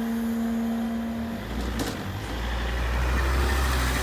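Steady hum from the half-barrier mechanism as the booms rise, stopping about one and a half seconds in, with a single knock just after. A car engine then rumbles as it pulls up to the crossing, with tyre hiss on the wet road growing near the end.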